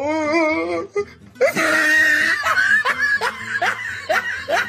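A person laughing: a wavering, drawn-out laugh for about a second, then after a short pause a longer run of rapid laughter.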